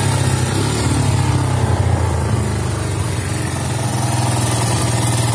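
Yamaha FZs single-cylinder air-cooled engine running steadily, circulating engine-flush additive through its old oil before an oil change.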